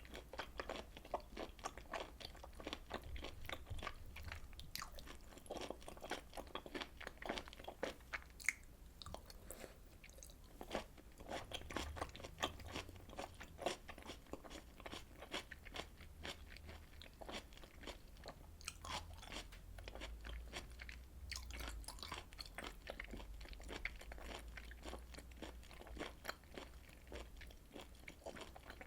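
Close-miked chewing and biting of grilled beef and pork intestines and tripe: a steady run of small clicks and crunches.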